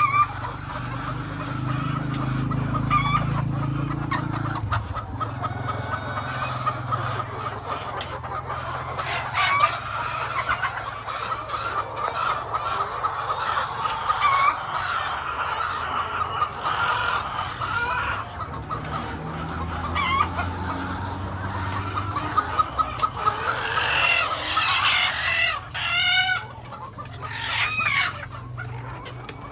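A large flock of chickens clucking continuously, with a rooster crowing near the end.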